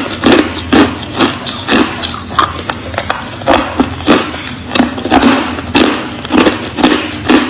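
Close-miked chewing of clear crushed ice, loud crunches at a steady rhythm of about two a second.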